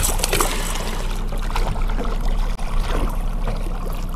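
Boat motor running steadily at trolling speed, a low even hum, with water splashing and lapping at the side of the boat.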